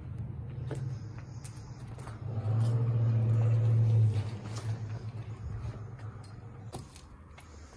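Footsteps crunching over rubble, with a low hum that swells loudest for about two seconds in the middle and then fades.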